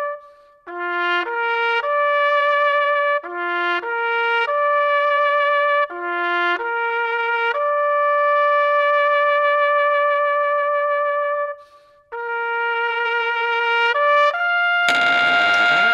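Music: a melody of held notes played on a brass instrument, trumpet-like, with short breaks between phrases. About a second before the end, a loud noisy burst cuts in.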